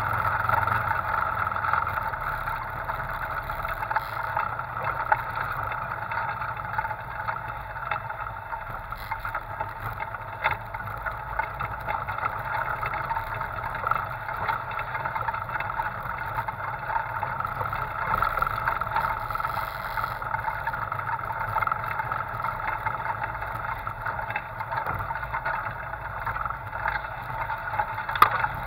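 Side-by-side off-road vehicle's engine running steadily as it drives over a dirt and rocky trail, with a few brief knocks and rattles.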